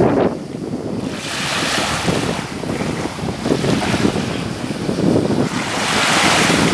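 Small waves breaking and washing up a fine shingle beach, with wind buffeting the microphone as a low rumble. The wash swells twice, about a second in and again near the end.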